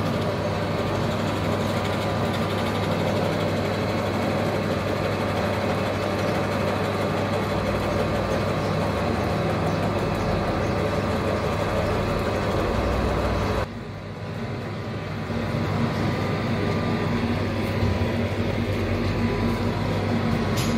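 Pillar drill press running with a steady motor hum as its bit bores into a wooden beam; the sound drops briefly about two-thirds of the way through, then comes back.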